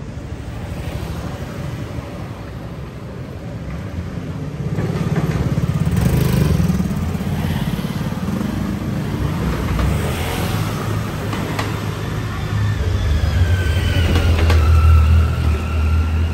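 Motor scooters and a motorcycle riding past at close range, engines running with a low rumble. It builds from a few seconds in and is loudest near the end as the motorcycle goes by.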